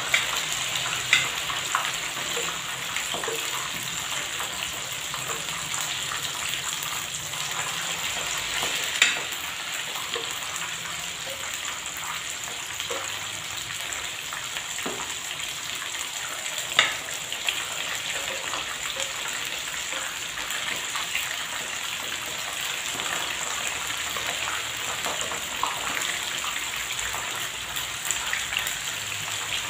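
Battered squid rings (calamari) deep-frying in hot oil, a steady sizzling hiss with a few louder sharp clicks.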